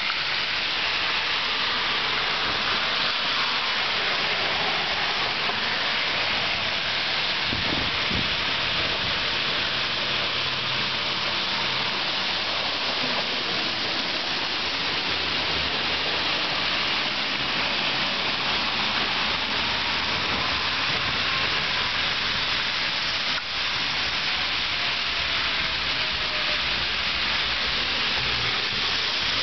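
Steady hiss of tyres on a wet, slushy street, with an orange dump-truck snow plow's engine and blade passing close by midway.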